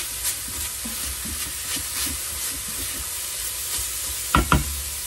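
Browned ground meat sizzling in an Instant Pot on sauté mode while a spoon stirs and scrapes through it, with small scattered knocks. Two loud, sharp knocks come close together about four seconds in.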